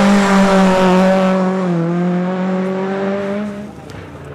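Rally car engine held at high revs at a near-constant pitch, easing slightly about two seconds in, then fading quickly near the end as the car drives away.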